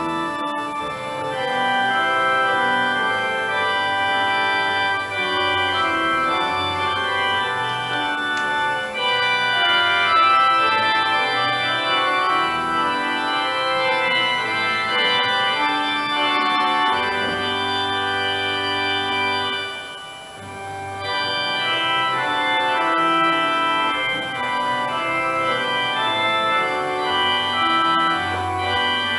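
A hymn played on an organ in slow, held chords, with a short break about twenty seconds in.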